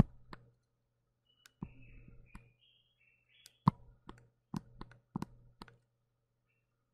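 Irregular sharp clicks from the computer pointing device, about a dozen, as red on-screen ink is erased from a lecture slide. Short scratchy hisses come between about one and a half and three and a half seconds in, over a faint steady low hum.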